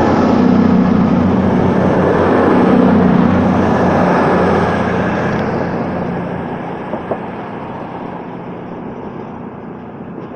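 Two coupled Class 220 Voyager diesel-electric units pulling out, their underfloor diesel engines humming under a broad rumble of train noise that fades away over the second half.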